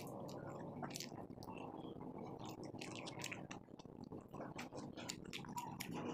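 A person chewing a mouthful of rice and cabbage omelette close to the microphone, with many short wet mouth clicks and smacks.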